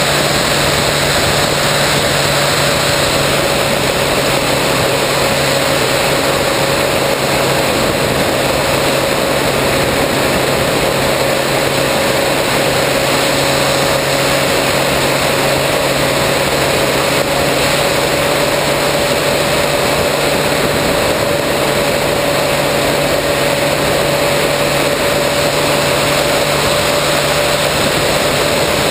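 Electric motor and propeller of a 3 m RC plane, heard from an onboard camera: a steady whine at nearly one pitch, under a constant rush of air noise.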